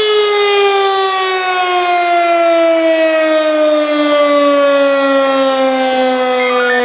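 Volunteer fire brigade's alarm siren sounding the call-out, one steady wail that falls slowly in pitch.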